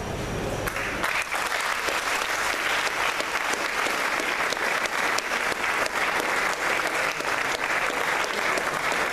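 Audience applauding: a dense, steady clapping that swells in about a second in and keeps on without a break.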